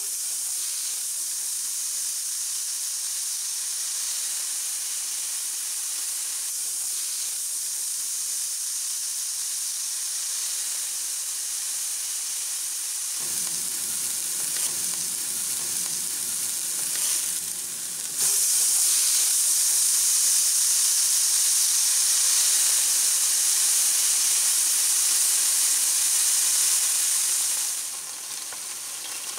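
Marinated pork shoulder sizzling as it fries in hot oil in a nonstick pan. The sizzle starts sharply as the first piece is laid in, grows louder about eighteen seconds in, and eases near the end.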